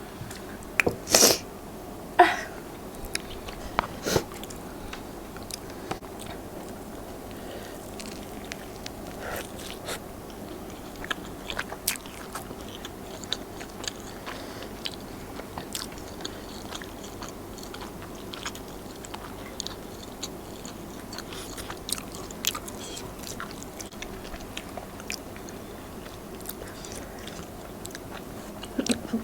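People biting and chewing food close to the microphone, with scattered small clicks and a few louder sharp sounds near the start.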